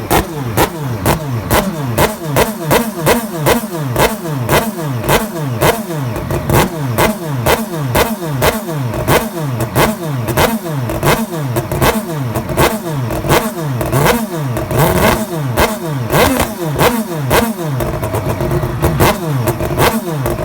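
Crighton CR700W motorcycle's twin-rotor Wankel engine being revved hard again and again, its pitch rising and dropping about twice a second, then running more evenly near the end.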